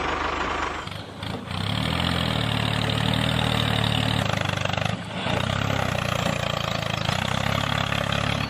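An engine running steadily with a low, even pulse. It drops away briefly about a second in and again about five seconds in.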